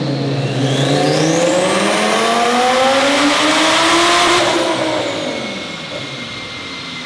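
Lamborghini Huracán's V10 engine making a dyno pull, revving up in one long climb in pitch for about four seconds. The pull then cuts off and the revs fall away.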